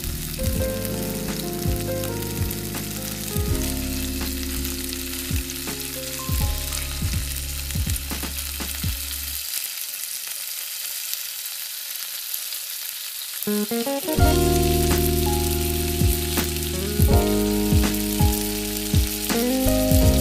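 Chicken tikka skewers sizzling in hot oil in a frying pan, with scattered clicks as the skewers are turned over against the pan. Background music with low held notes plays underneath and drops out for a few seconds around the middle.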